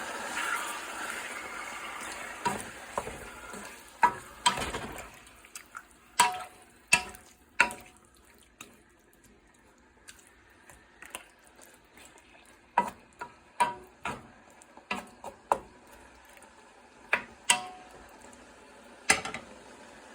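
Chicken frying in oil with onion and garlic, the sizzle fading over the first few seconds. Then a utensil stirring in the pan, knocking sharply against it a dozen or so times at uneven intervals.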